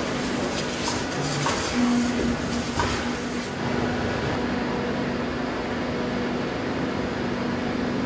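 Shoe-factory workshop ambience: a steady machine hum, with a few light clicks and taps in the first three seconds.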